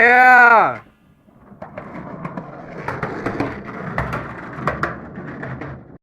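A short pitched sound rises and falls and ends the music, then a skateboard rolls over pavement: a steady wheel rumble with scattered sharp clicks, cutting off suddenly near the end.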